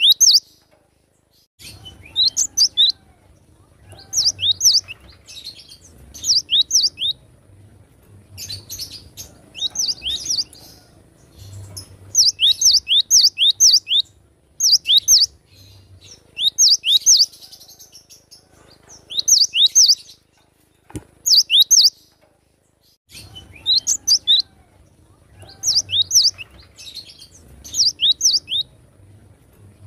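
Cinereous tit (gelatik batu) singing: short, high, down-slurred whistled notes in quick groups of two to six, repeated every second or two, with a couple of brief pauses.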